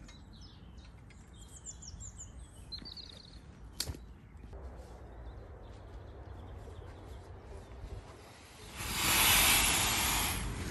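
Small birds chirping over a faint outdoor background, with a single sharp click about four seconds in. Near the end, a loud rustling hiss lasts about a second and a half.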